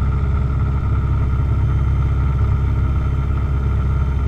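Piper PA-28 Cherokee's piston engine running steadily at run-up power, about 2,000 RPM, while the mixture is being leaned.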